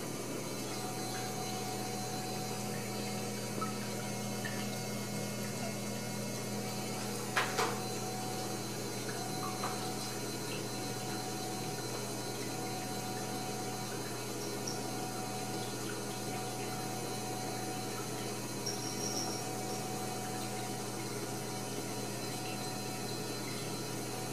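Steady hiss and low hum, like a fan or other machine running in the room, with a few faint ticks and one sharper knock about seven and a half seconds in.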